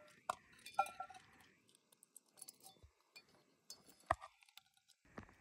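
Dog eating from a double-wall titanium bowl, the metal bowl clinking faintly several times with a short ring, the loudest clink about four seconds in.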